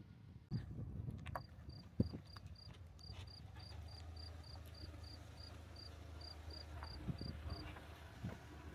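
A cricket chirping in a steady, even rhythm of short high chirps, about four a second, stopping near the end. A soft knock comes about two seconds in.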